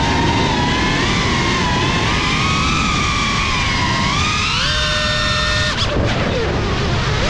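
GEPRC Cinelog 35 cinewhoop's brushless motors and ducted propellers whining, the pitch rising and falling with the throttle over rushing prop wash. About six seconds in, the whine drops sharply as the throttle is chopped during a roll, then climbs again.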